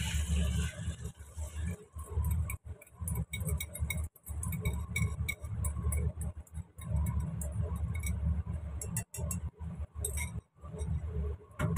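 Beaten egg hitting hot oil in a small wok, sizzling with many small spitting pops over a low rumble, with a hiss that is strongest as the pour begins. Chopsticks clink against a ceramic bowl.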